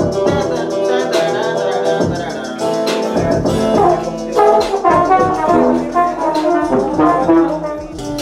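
Corrido-style regional Mexican music led by brass: charchetas (alto horns) holding chords, over a steady beat with strokes about once a second.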